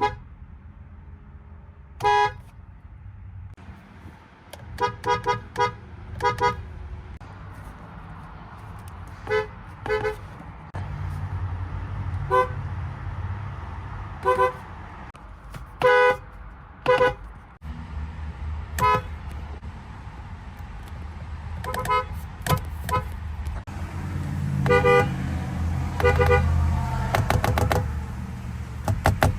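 Infiniti car horns giving short beeps, some single and some in quick runs of two to four, over a low rumble.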